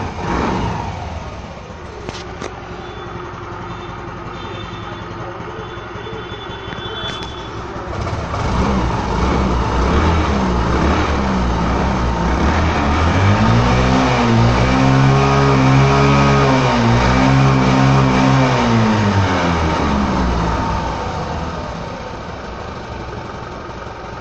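Yamaha Ray ZR scooter's single-cylinder four-stroke engine on its stock exhaust, idling and then revved. The revs climb from about eight seconds in, are held high with a few dips, and fall back to idle near the end.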